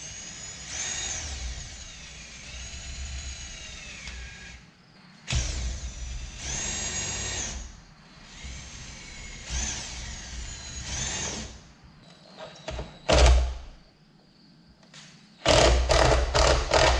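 Cordless drill running in three bursts, its whine speeding up and slowing down, as it works self-tapping screws into the truck's cab roof to hold a sun visor. A few sharp knocks follow. Near the end there is a quick run of loud clattering pulses.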